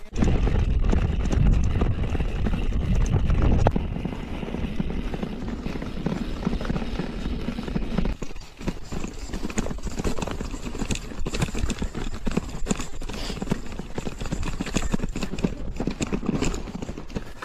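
Mountain bike ridden over rough, rocky trail, the bike rattling and knocking over the bumps. A low rumble fills the first few seconds, then the knocks come thick and irregular from about halfway in.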